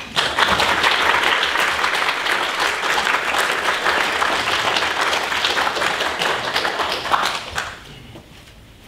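Audience applauding, a dense round of clapping that starts straight away and dies out near the end.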